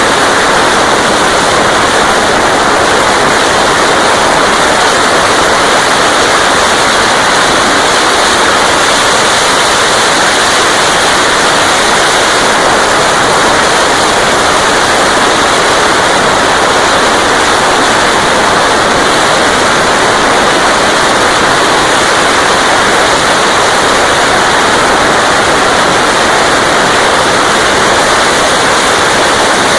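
Honda Dream C100 motorcycle with a Roncar aluminium exhaust running at speed on the road, its four-stroke single-cylinder engine largely buried under steady wind noise on the microphone.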